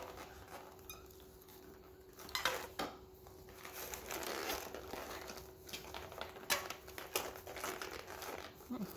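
Doll packaging, plastic and cardboard, rustling and crinkling in irregular bursts with small clicks as the doll is worked free of the ties holding it in its box.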